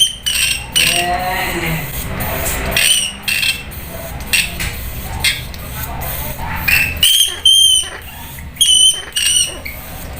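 A rat squeaking: about a dozen short, sharp, high-pitched squeaks at irregular intervals, some in quick pairs.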